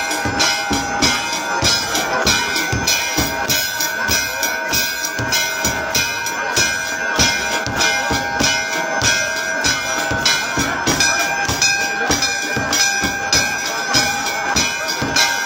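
Temple bells ringing on and on over a fast, even beat of drum and cymbal strokes, about three a second: the music of an aarti.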